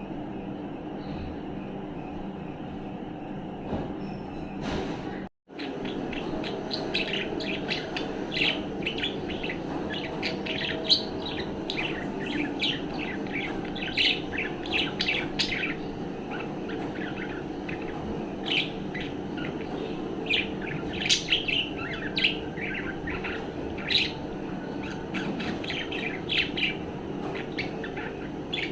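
Budgerigar chirping and warbling in quick, short chirps, beginning about six seconds in after a brief cut-out, over a steady background hum.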